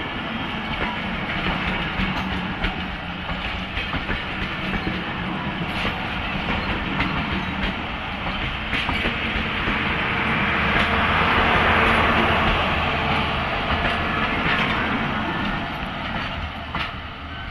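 Passenger train coaches rolling past at close range, wheels clicking over the rail joints under a steady rumble. The sound grows louder about ten seconds in, then eases off near the end.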